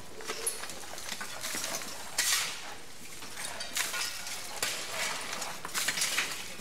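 Rubble and broken debris clinking and scraping as it is shifted and cleared, in irregular short bursts with scattered clicks.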